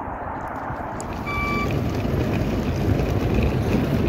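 A motor vehicle running close by, with one short electronic beep about a second and a half in.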